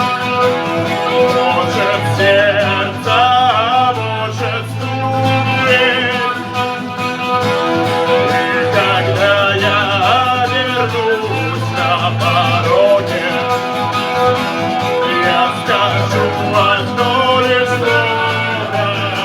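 Rock music in an instrumental passage: a lead guitar melody with bent, wavering notes over a steady bass and drum beat.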